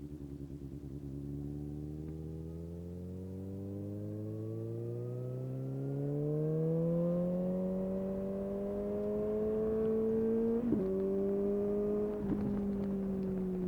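Suzuki GSX-S750 inline-four running through a Yoshimura SQ11 exhaust with no dB killer and a de-cat. It pulls from low revs with the pitch rising slowly and steadily, then gives two quick upshifts near the end.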